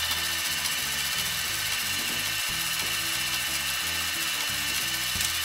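Background music with slow held chords, over the steady hiss of a metal lathe running with a hand file held against the spinning workpiece.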